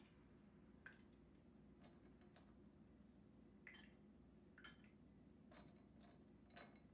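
Pieces of candy corn dropped into glasses of liquid and picked from a ceramic bowl: faint, scattered small clicks and plops, about seven in all, over a low room hum.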